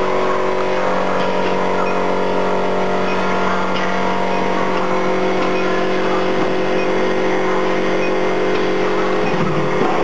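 Induction forging machine running: a steady machine hum with several held tones over factory noise.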